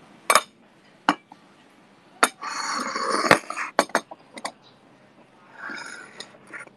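Ceramic coffee cup and saucer, with a metal teaspoon on the saucer, clinking against each other and the marble tabletop as they are handled and set down. There are several sharp clinks and about a second of sliding, scraping noise near the middle.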